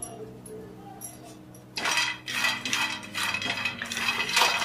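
A wooden spatula stirs dry-roasting peanuts in a pan, with the peanuts rattling and scraping against the pan. It starts about two seconds in and goes on in quick repeated strokes.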